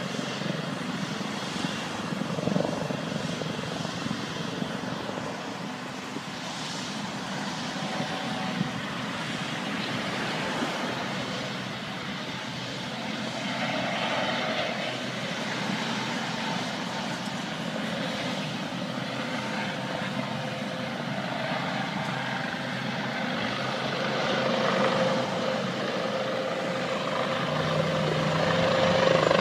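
Helicopter approaching overhead, its rotor and engine noise steady at first and growing louder near the end as it comes in close.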